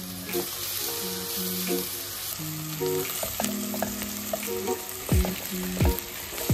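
Chopped onions and peppers sizzling as they fry in oil in a non-stick pot, stirred with a spatula. Background music plays over it, with a few deep thuds in the second half.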